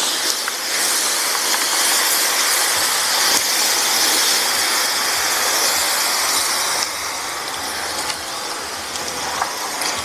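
Small handheld fire extinguisher spraying onto the embers of a disposable barbecue: a steady, loud hiss, a little softer from about seven seconds in.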